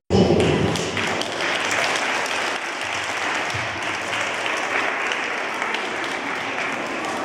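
A crowd of schoolchildren and teachers clapping, starting abruptly after a split-second dropout and going on steadily.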